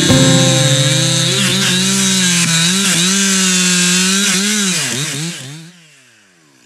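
Stihl MS 261 two-stroke chainsaw cutting through a log, its engine pitch wavering under load. About five seconds in, the revs fall away and the sound fades out.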